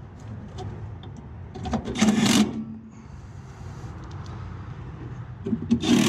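Milwaukee cordless drill-driver running in screws in two short bursts, one about two seconds in and another near the end, fastening the replacement draft inducer motor in place.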